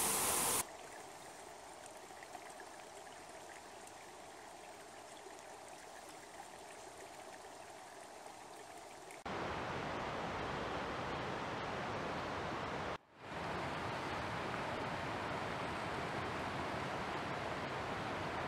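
Running water, a steady rush like a stream. It is faint for the first nine seconds or so, then jumps louder, with a brief dropout about thirteen seconds in.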